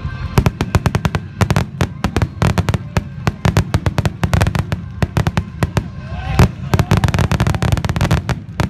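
A dense, rapid barrage of aerial firework shells bursting, many sharp booms and cracks a second, the closing volley of a fireworks finale. It stops just before the end.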